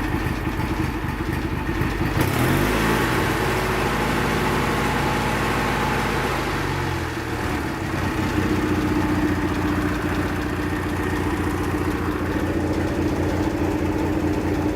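GT6000 garden tractor's engine running. Its speed picks up about two seconds in and changes again around seven seconds in, then it runs steadily.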